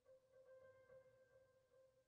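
Near silence: room tone with a very faint steady hum.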